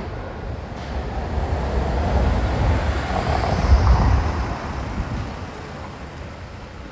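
A motor vehicle passing by on the street, a low rumble that swells to a peak about four seconds in and then fades away.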